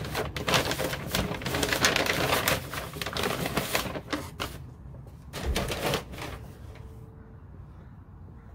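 Brown kraft packing paper crinkling and rustling as it is pulled off a framed painting and lifted out of a cardboard box. The crackling is dense for the first four seconds, comes in a couple of shorter bursts about five to six seconds in, then dies down.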